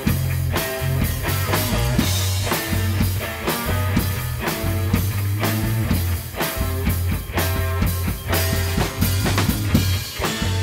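Rock music with a drum kit and bass keeping a steady beat.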